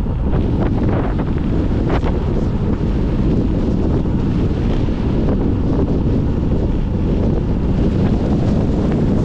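Wind buffeting the microphone of a camera on a moving bicycle: a loud, steady low rumble, with a few faint ticks now and then.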